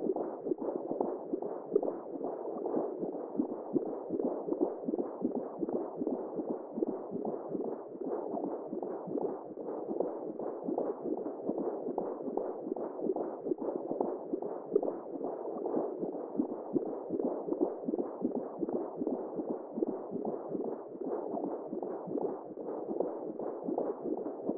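Womb sound, the steady whooshing noise heard inside the uterus, played as a sleep aid for newborns. It is muffled, with nothing above the low-middle range, and has a fast, uneven flutter running through it.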